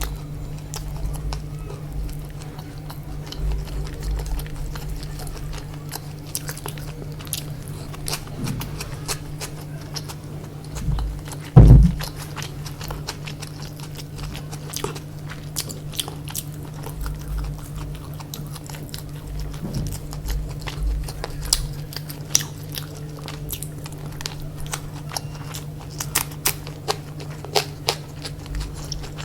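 Close-miked chewing and biting of chicken biryani, with many small wet clicks of the mouth over a steady low hum. A single loud thump comes about twelve seconds in.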